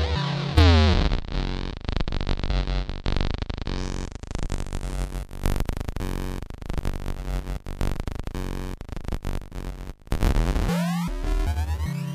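Synthesized electronic sound effects. A falling pitch sweep comes about a second in, then a rapid stuttering, glitchy synth texture, then a rising sweep near the end, over low synth bass notes.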